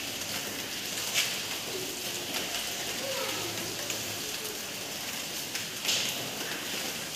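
Marker writing on a whiteboard, with two sharp taps about a second in and near six seconds, over a steady hiss. Faint low cooing sounds in the background in the middle.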